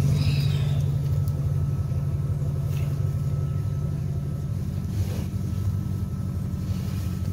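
Engine of the towing vehicle idling steadily, a constant low hum.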